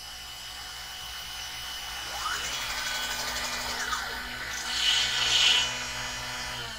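Silverback 6060 CNC router moving its gantry over a steady motor hum, the stepper whine rising as it speeds up and falling as it slows. About five seconds in comes a brief, louder grinding as the spinning bit just starts to cut into the wood.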